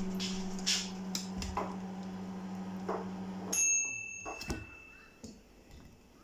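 Microwave oven humming as it heats, then shutting off about three and a half seconds in, with a high electronic beep marking the end of the one-minute cycle, followed by a click.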